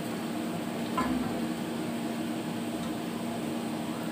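Potato fries deep-frying in hot oil in an iron karahi: a steady sizzle and bubbling, over a steady low hum, with one small knock about a second in.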